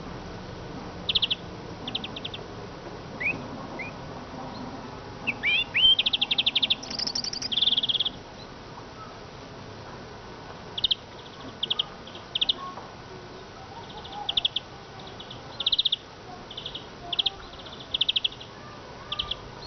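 Eurasian siskin singing: short buzzy trills, a few rising chirps, and a dense run of twittering with one higher note a few seconds in, then short trilled phrases repeated every second or so.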